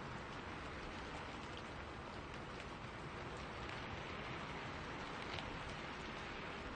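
Steady rain falling in a spruce forest, a constant hiss with scattered drops pattering on surfaces and faint wind through the trees.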